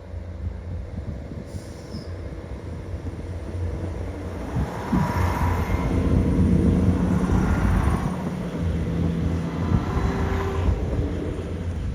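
A British Rail Class 158 diesel multiple unit running, with a steady low diesel engine rumble that grows louder from about four seconds in.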